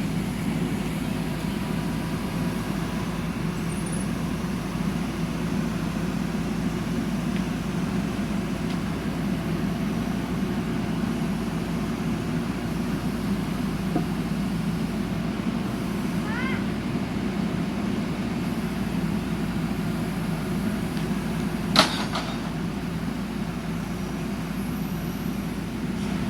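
JCB backhoe loader's diesel engine running steadily. A single sharp metallic knock stands out about three-quarters of the way through.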